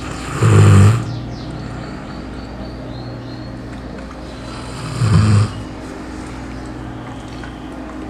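Sleeping dog snoring loudly: two snores about four and a half seconds apart, one about half a second in and the next about five seconds in.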